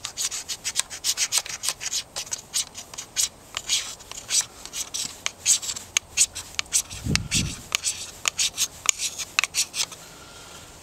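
A knife blade scraping a magnesium rod in quick, repeated strokes, several a second, shaving magnesium onto a tinder bundle to start a fire. The scraping stops a little before the end, and a brief low thump comes about seven seconds in.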